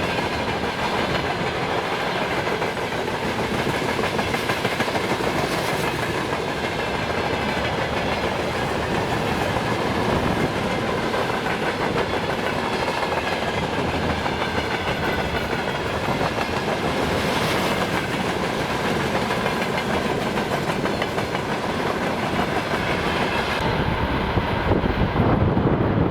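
Freight train wagons rolling past with a steady clatter of wheels on the rails. Near the end the higher hiss falls away and a low rumble of wind on the microphone rises.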